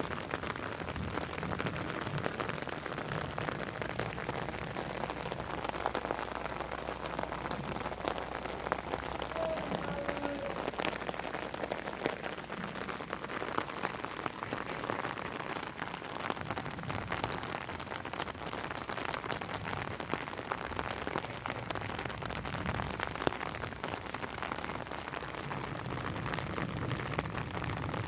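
Steady rain falling, with many separate drops ticking on surfaces.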